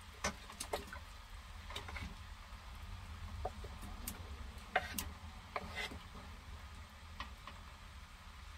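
Irregular clicks and knocks of a utensil scraping chopped potatoes and carrots off a wooden cutting board, the chunks dropping into a pot, over a low steady hum.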